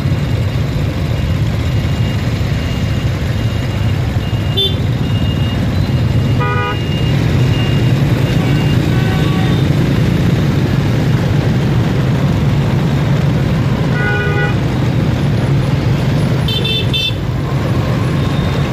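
Motorbike traffic: a steady low rumble of engines and road noise, with short horn beeps about six and a half seconds in, again around fourteen seconds, and a higher-pitched one near seventeen seconds.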